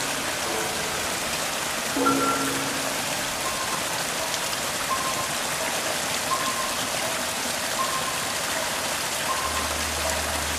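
Small stream splashing down a little cascade over mossy rocks: a steady rush of running water. Sparse, soft music notes sound over it at regular intervals, with a low held tone coming in near the end.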